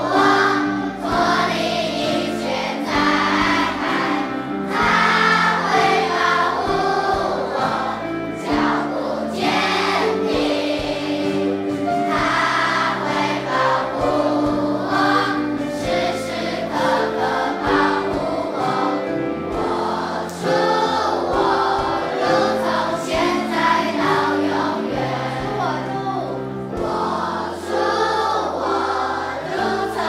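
Christian worship song: a group of voices singing over an instrumental backing with steady bass notes and held chords.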